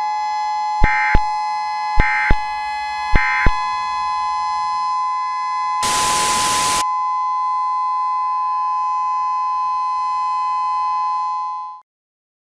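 Emergency Alert System–style two-tone attention signal held steady and buzzy. About a second in come three short digital data bursts, a second apart, in the manner of SAME end-of-message codes. A one-second burst of static sounds near the middle, and the tone cuts off suddenly near the end.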